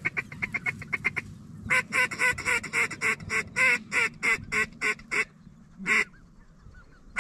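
Goose calling: a fast run of short clucks, then a steady series of loud honks at about four a second, and one last honk near the end.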